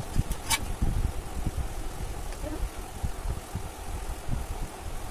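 Low, uneven rumble of background noise, with one brief click about half a second in.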